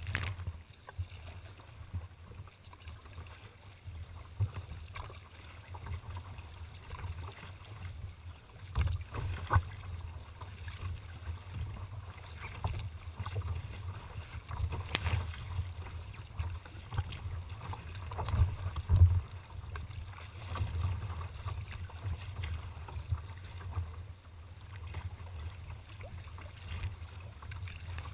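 Kayak moving through choppy water, with irregular splashes of water against the hull over a steady low rumble of wind buffeting the microphone; the loudest splashing comes a little past the middle.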